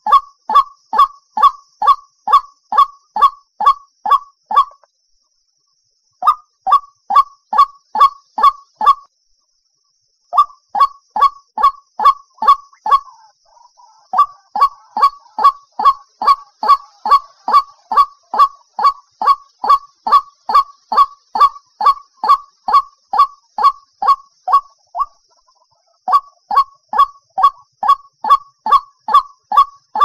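White-breasted waterhen calling: a fast, even series of loud 'ruak' notes, about two and a half a second, broken by a few short pauses.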